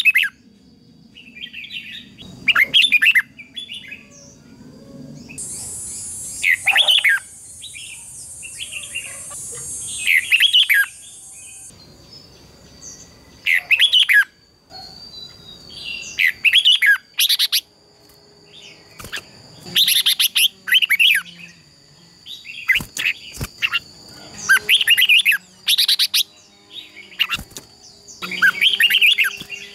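Red-whiskered bulbuls singing in competitive song: loud, short warbling phrases repeated every two to three seconds. A high hiss runs for about six seconds from roughly five seconds in.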